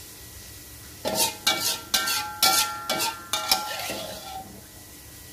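Metal spatula scraping and stirring sauce around a metal wok, about six strokes starting a second in and stopping near the four-second mark, each stroke making the pan ring.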